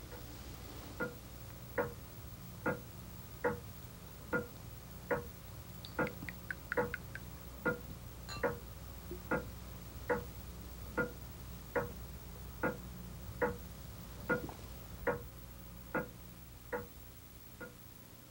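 Mantel bracket clock ticking steadily, a little over one tick a second, over a low steady hum. About six to eight seconds in, a few lighter clicks and a faint high ring fall between the ticks.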